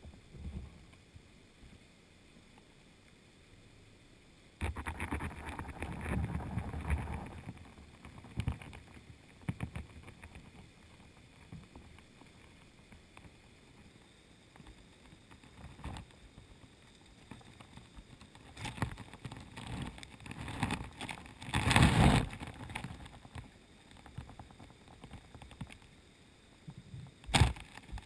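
Underwater sound heard through a submerged camera's housing on a riverbed: a faint steady hiss broken by irregular rushes of water noise and knocks. The loudest burst comes about two-thirds of the way in, and there is one sharp knock near the end.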